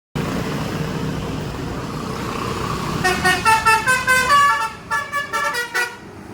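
A bus's engine runs steadily. About three seconds in, a Basuri telolet multi-tone bus horn plays a quick tune of short notes at changing pitches for about three seconds.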